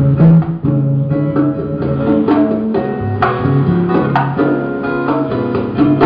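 Steel-string acoustic guitar played live: an instrumental break of picked notes and chords, several new notes a second, ringing into one another.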